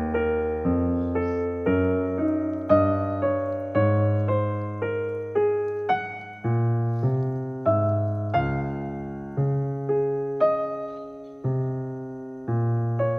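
Background music: an electric-piano tune of struck notes, each fading away, over low bass notes that change about once a second.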